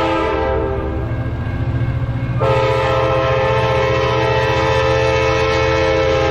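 Sounder commuter train's multi-note air horn sounding as the train passes close by, over the low rumble of the train. The horn is blown at the start, eases off, then sounds again strongly from about two and a half seconds in and is held.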